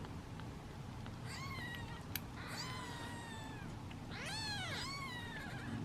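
Young British Shorthair kittens giving three high-pitched meows that rise and fall in pitch, the middle one drawn out to about a second; impatient, hungry calls while waiting to be fed. A single sharp click is heard about two seconds in.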